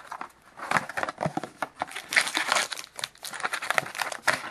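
Plastic wrapping on a box of SP Game Used hockey card packs crinkling and rustling as the box is opened and the packs are taken out. The crackling is irregular and continuous from about half a second in.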